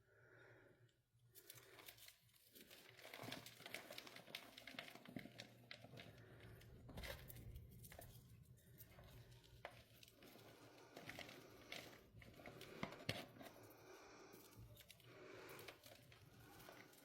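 Faint, crackly crumbling of pressed glitter reform blocks being crushed by hand, with many small sharp crunches and clicks.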